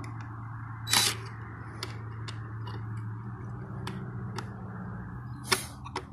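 Cordless impact driver and its long screw handled against a wooden board, not running: small clicks and two sharp knocks, one about a second in and one near the end, over a steady low hum.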